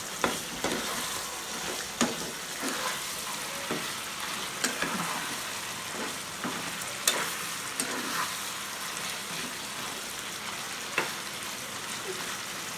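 Mutton curry sizzling in a nonstick pan while a metal spatula stirs and scrapes through it, with a sharp clack of the spatula against the pan every few seconds.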